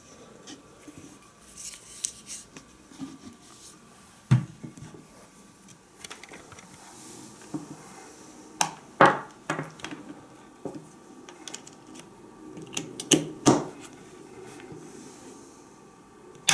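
Knocks and clacks of a Braun JB 3060 blender's glass jar and plastic base being handled and set down on a table: a handful of sharp knocks, the loudest coming in quick pairs about halfway and two-thirds through. Near the end, a click as the power strip's rocker switch is pressed.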